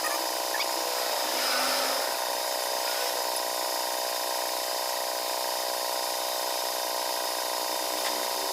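A small motor running steadily with a constant whine and hiss.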